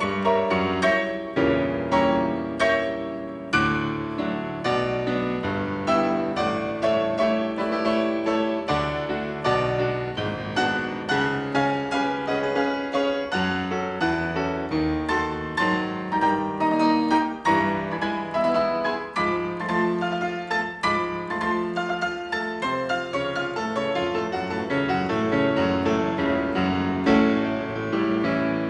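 Solo piano playing classical music: a fast, loud passage with many notes and chords in quick succession.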